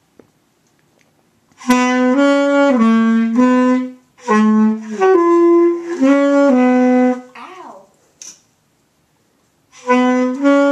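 Alto saxophone playing a slow melody of held notes in phrases, with a short sliding note after the second phrase and a pause of about two seconds before the next phrase starts near the end.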